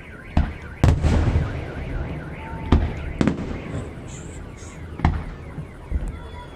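Fireworks salvos: about six sharp bangs at uneven intervals, each with a rumbling tail, and a brief high crackle in the middle. A car alarm warbles at the start and falls silent as the first bang goes off.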